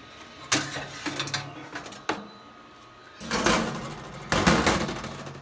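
Metal air-fryer basket being handled at the open toaster oven: two sharp clanks, then two longer scraping rushes as it slides against the rack.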